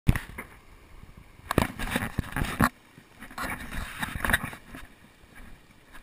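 Handling noise from a GoPro action camera being carried through grass and brush: a sharp knock right at the start, a run of knocks and bumps about a second and a half in, then softer scuffing and rustling.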